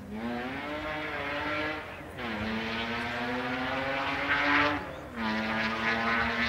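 BMW Compact rally car's engine accelerating, its pitch climbing steadily in each gear. It cuts out briefly about two seconds in and again about five seconds in for upshifts, each time picking up at a lower pitch.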